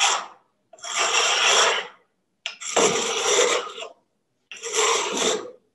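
Steel chisel tip scraped across the coarse side of an oiled oil stone to square the tip. It makes a harsh, gritty rasp in separate strokes, each about a second long and about a second and a half apart.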